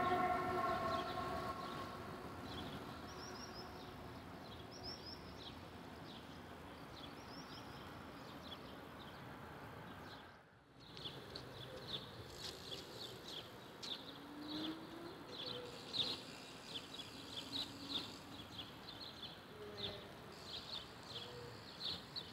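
The tail of a train horn fades out in the first second, then quiet outdoor ambience. Scattered short, high chirps come in clusters and grow more frequent after a brief dropout near the middle.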